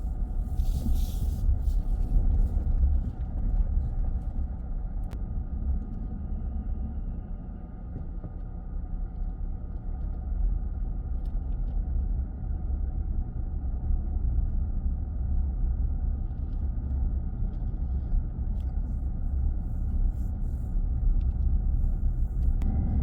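Steady low road rumble inside a moving minivan's cabin: tyres and engine running at cruising speed, with a faint steady hum over the rumble.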